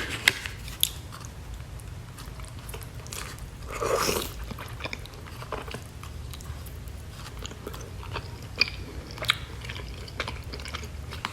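A person eating soup dumplings: chewing and biting with small scattered mouth and utensil clicks, and one short louder sound about four seconds in.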